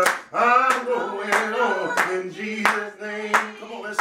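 A man singing a gospel song and clapping his hands on the beat, about three claps every two seconds.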